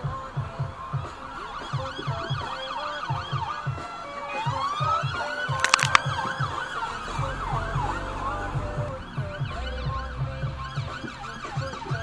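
Sirens of several police vehicles on emergency call, their wail and yelp tones overlapping and rising and falling, loudest about halfway through as the cars pass. A couple of sharp clicks come at the loudest point, and a regular low thumping runs underneath.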